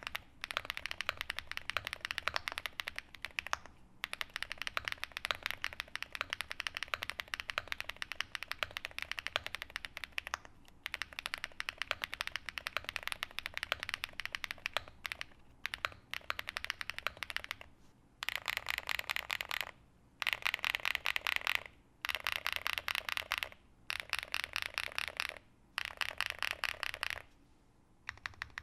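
Mechanical keyboard typing on an Angrymiao AM Relic 80 with SW x Haimu MP Tactile switches (POM housing, UPE stem with metal-tipped pole) on an FR4 plate: keystrokes clacking in a fast, continuous stream. About two-thirds of the way through it changes to short runs of rapid repeated presses on the modifier keys, with brief pauses between.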